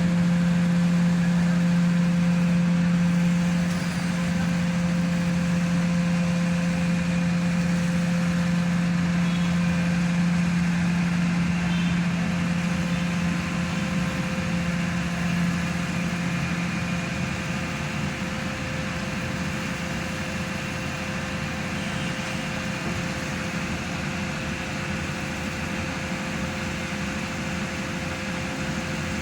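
Hydraulic static pile driver running steadily, its engine and hydraulic pump giving a loud, even hum. The strongest low hum eases off about two-thirds of the way through while the machine keeps running.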